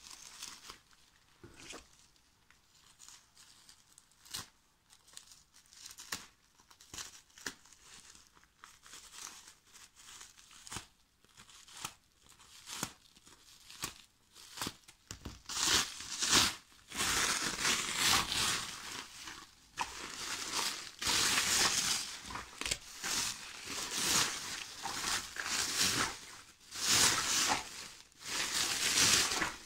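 Plastic bubble wrap being crinkled and torn open by hand. For about the first half there are quiet, scattered rustles and clicks; from about halfway there are loud, repeated bursts of crinkling.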